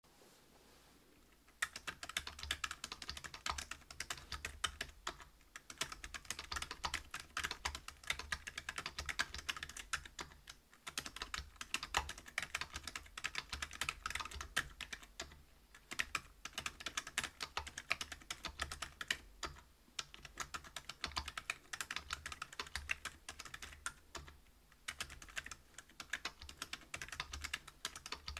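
Fast, continuous typing on a Whale 75 mechanical keyboard fitted with stock Gazzew Bobagum silent linear switches (62 g), a brass plate and PBT keycaps. The keystrokes start about a second and a half in and run on with short pauses every few seconds.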